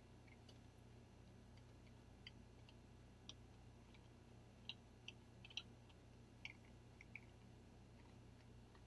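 Near silence with faint, irregular clicks and ticks, bunched a little past the middle, from a titanium microneedle derma roller being rolled over the skin of the neck.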